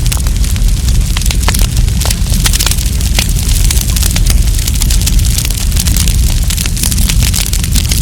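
Wood campfire crackling, with dense, irregular snaps and pops over a steady low rumble.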